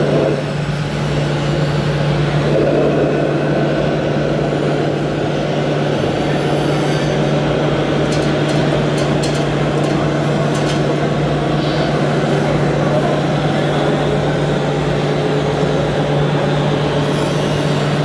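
Radio-controlled scale tipper truck running with a steady truck-engine drone that holds level throughout, with a few brief sharp clicks about halfway through.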